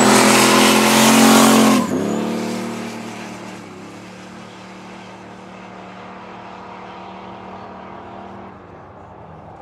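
A Fox-body Ford Mustang and a second car launching from a drag-strip start at full throttle, loud and harsh for the first two seconds. The engine note breaks and drops suddenly at a gear change about two seconds in, then fades steadily as the cars run off down the strip.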